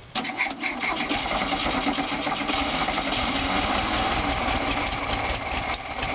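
Air-cooled VW Beetle flat-four engine, cranked by the starter and firing into a start, with the fuel lines newly set the right way round. It comes in suddenly at the start and keeps going steadily.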